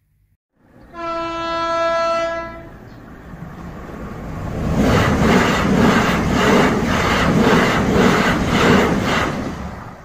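A train sounds its horn once, a single steady note lasting under two seconds, then passes close by: the running noise builds up with a regular clatter of wheels over rail joints, about two a second, and drops away near the end.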